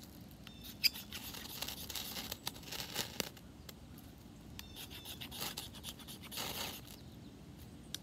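The spine of a carbon-steel Mora Classic knife is scraped down a ferrocerium rod in several rasping strikes to throw sparks onto wood shavings. There is a sharp click about a second in.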